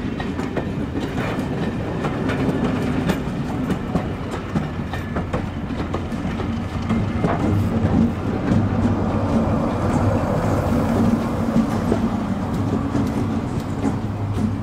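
Diesel locomotive working a train past, a steady engine note under wheels clicking over the rail joints. The engine note grows stronger about halfway through.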